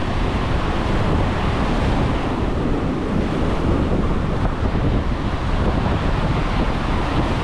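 Ocean surf breaking and washing up the sand at the water's edge, a steady rushing noise, with wind buffeting the microphone as a low rumble.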